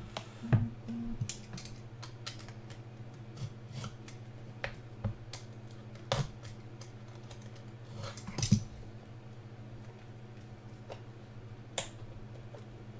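Trading-card packaging being opened and handled: scattered sharp clicks and short rustles, about a dozen in all, the loudest a little over half a second in and around eight and a half seconds in, over a steady low hum.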